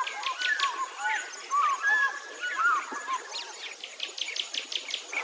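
Several birds chirping and calling together, a busy mix of short rising and falling notes and quick high chips, over a thin steady high-pitched tone.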